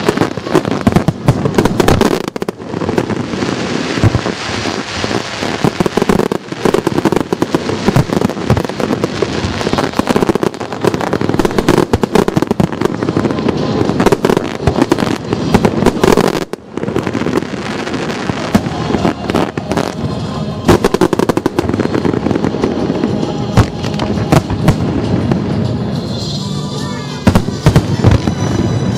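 Aerial fireworks barrage: a dense, unbroken run of bangs and crackling bursts overlapping one another.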